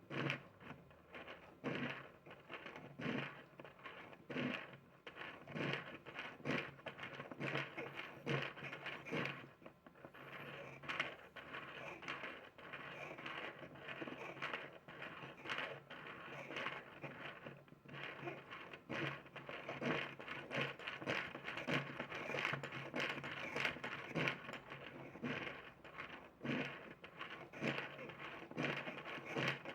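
3D-printed plastic barrel cam and follower running, turning rotation into back-and-forth linear motion: continuous plastic rattling and scraping with frequent sharper clicks.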